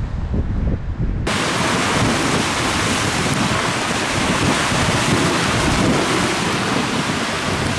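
Wind buffeting the microphone with a low rumble, then, a little over a second in, a sudden change to the steady hiss of a storm: waves breaking on a rocky shore amid wind and rain.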